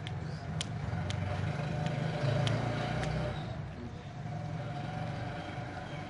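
Low, steady engine hum, growing louder toward the middle and then easing off, with a few sharp high clicks over it in the first half.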